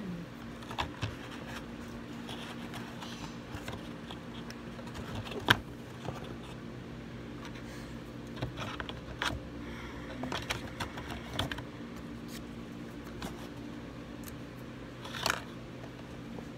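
Scattered small clicks and taps of hands handling a plastic toy doll and its parts, with one sharp click about five and a half seconds in and another louder tap near the end, over a steady low hum.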